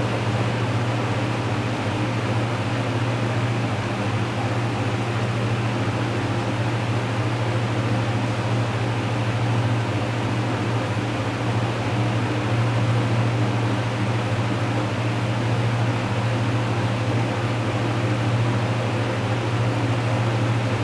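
Vintage Manning Bowman 20-inch metal-blade box fan running steadily on low speed: a rush of moving air over a constant low motor hum.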